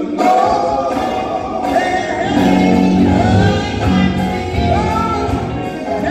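A male singer performing live with band backing in a large hall, his voice gliding over a full accompaniment that swells with bass just after the start.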